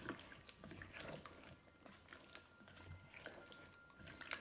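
Faint wet stirring of a full pot of beef stew with chunky vegetables: soft squelching with a few light clicks of the spoon against the pot.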